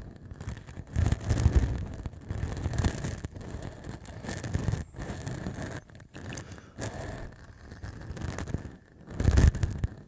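Short, rough beard stubble scratched and rubbed directly against a Tascam recorder's microphone capsule: irregular rasping strokes with low handling rumbles, loudest about a second in and again near the end.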